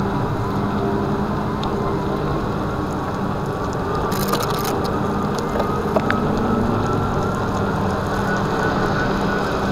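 Solowheel electric unicycle rolling over wet asphalt: a steady hiss and crackle of the tyre on the road and wind on the mics, with a faint motor whine that slowly rises in pitch.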